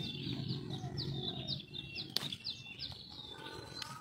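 Small birds chirping over and over, short falling chirps about three a second. A low steady hum stops about a second and a half in, and there is one sharp click about two seconds in.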